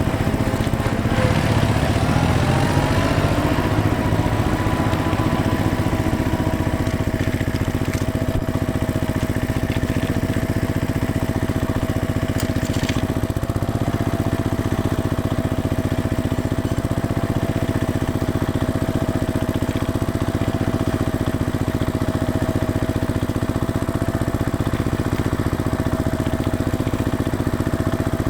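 An engine running steadily. Its pitch climbs over the first few seconds, then holds even.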